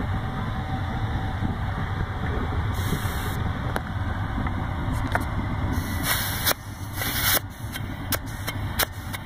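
Steady low roar of a homemade waste-oil burner, its air blown in by a hair dryer. Over it come several short hisses of air, the loudest about 6 and 7 seconds in, with a few clicks, as the oil-feed sprayer tank is pumped back up to pressure because the burner is losing oil pressure.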